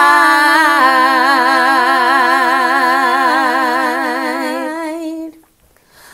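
A woman singing a cappella, holding one long note with a steady vibrato for about five seconds, then breaking off into a short pause near the end.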